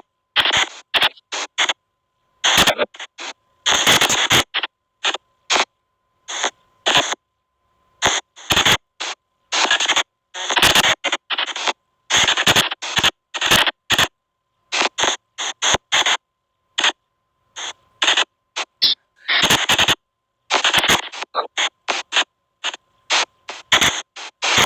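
SP White Noise Box ghost-box app sounding: choppy bursts of hiss and scrambled sound that cut in and out irregularly, with dead silence between bursts and a faint steady tone underneath through much of it.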